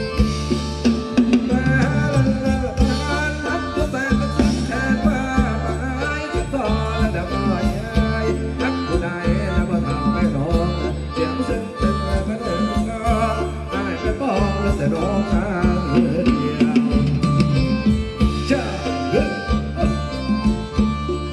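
Live band playing Thai ramwong dance music, with a steady beat and a melodic lead over it.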